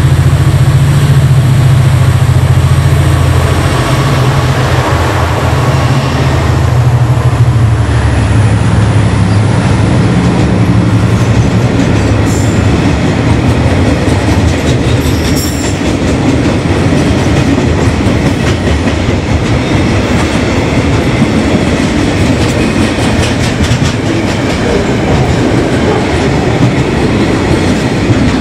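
Two DFB-class diesel-electric locomotives pass close with their engines running loud and low, the engine tone fading after the first few seconds. A long freight train of container and tank-container wagons follows, rolling past with steady wheel rumble and clatter, and a couple of brief high squeaks near the middle.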